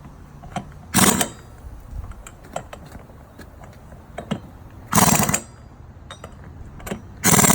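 Impact wrench tightening wheel lug nuts in three short bursts, about a second in, near the middle and near the end, with faint clicks between them.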